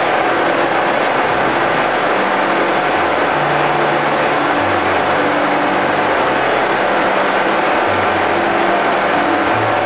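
Engines and pump machinery of a tin-mining suction boat running loudly and steadily.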